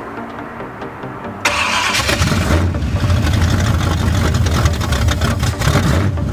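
Small-block Chevy V8 in a 1981 El Camino starting: it cranks briefly, fires about a second and a half in, then runs loudly with a deep, steady rumble.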